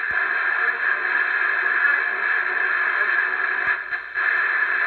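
Realistic Mini 23 CB radio's speaker putting out a steady, loud rush of static after unkeying, with faint broadcast audio under it that sounds like music: the 23-channel set is picking up an FM station.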